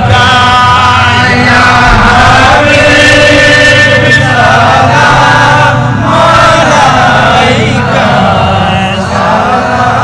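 Milad qiyam devotional salutation sung by a man through a PA microphone, with a crowd of men chanting along. It goes in long held notes, in phrases of about two seconds.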